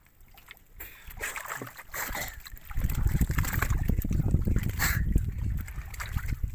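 Water splashing and sloshing as a man wades and works in a net fish-trap enclosure, growing louder about a second in; from about three seconds in a heavy low rumble sits under the splashing.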